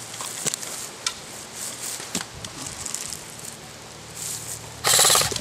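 Dry forest floor crackling with scattered small clicks. Near the end comes a loud half-second burst of rapid, evenly spaced clicks: an electric airsoft rifle firing a short burst on full auto.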